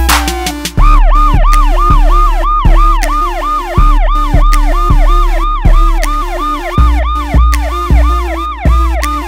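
A fast yelping police-style siren, rising and falling about three times a second, starting about a second in, over music with a heavy, pulsing bass line.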